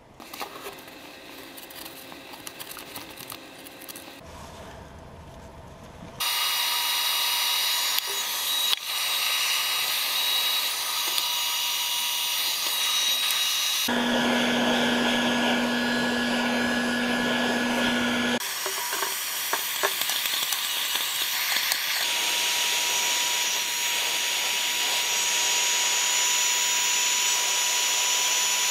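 Bosch GHG 650 LCE heat gun blowing hot air: a loud, steady fan hiss with a thin whine. It starts abruptly about six seconds in and shifts in tone and hum a few times. Before it there are a few seconds of quieter clicks from metal parts being handled.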